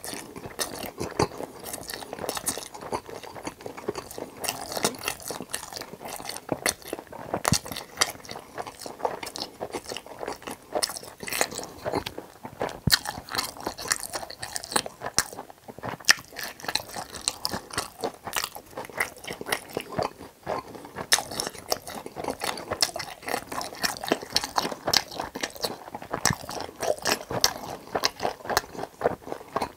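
Close-miked chewing of battered fried pork (tangsuyuk) in sauce, with many sharp, irregular crunches throughout.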